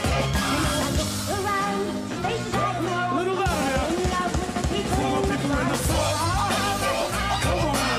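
Live hip hop band playing: drum kit groove with bass and a sung vocal line gliding over it. The drums and bass thin out briefly about three seconds in, then come back in full with a run of fast drum notes.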